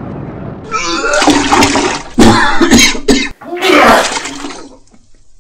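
A person retching and gagging in three loud, rough heaves, fading out near the end.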